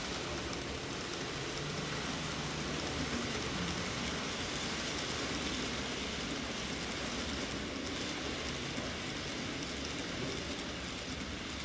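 N-gauge model trains running on the layout track, a steady rolling hiss.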